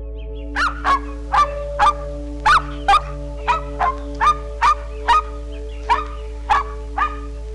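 A dog barking in a quick, steady run, about two barks a second, starting about half a second in. Soft background music with long held tones plays underneath.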